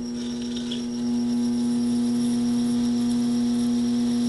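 Taig lathe running with a steady hum while a 7/16-inch twist drill fed from the tailstock cuts into aluminium; the sound grows louder about a second in and then holds steady.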